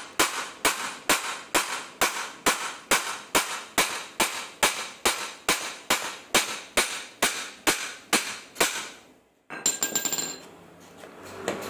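Hand hammer striking the steel yoke of a propeller shaft in steady, evenly spaced metal-on-metal blows, about two a second, to work loose a dry, worn universal joint (cross joint). The hammering stops about nine seconds in, followed by a brief clatter of metal parts being handled.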